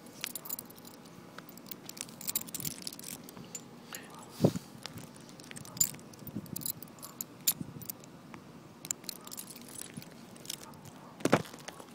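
Metal jingling and clinking from a guide dog's harness and tags as the dog walks, with two louder knocks, one about four and a half seconds in and one near the end.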